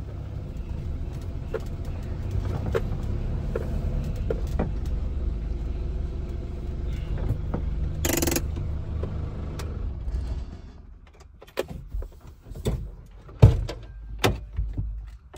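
Steady rumble of a car driving, heard from inside the cabin, which drops away about ten seconds in. A few sharp clicks and knocks follow as the inside door handle is pulled.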